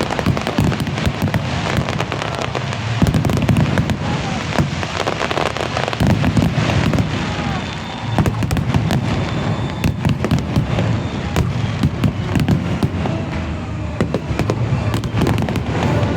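Fireworks display going off in a dense, continuous barrage: rapid bangs and crackles one on top of another, over a steady deep rumble.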